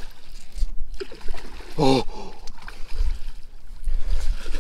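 A hooked bass splashing and thrashing at the water's surface as it is played in to the bank, with a low rumble underneath.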